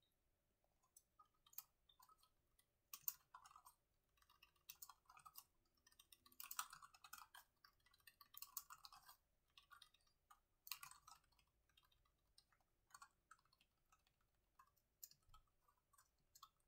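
Typing on a laptop keyboard: faint, irregular key clicks in quick runs with short pauses, busiest in the middle.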